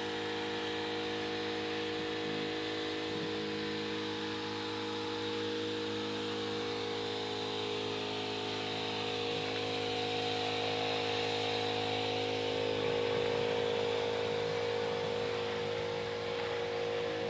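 A motor running steadily at a constant speed, a humming drone with a hiss over it.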